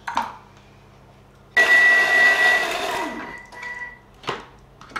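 Thermomix food processor's motor starting suddenly and running at speed to mix cake batter: a loud whir with a steady high whine for about a second and a half, then winding down. A single knock follows near the end.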